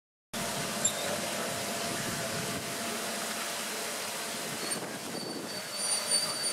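Steady outdoor wind and water noise starting suddenly, with a sharp click about a second in and thin, high squeaks between about five and six seconds in.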